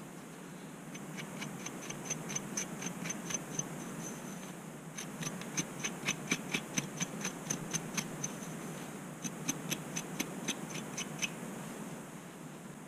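Quick scraping strokes on a flaky, dandruff-covered scalp through thick curly hair, each stroke a sharp tick, about five a second in three runs with short pauses between, over a steady low hum.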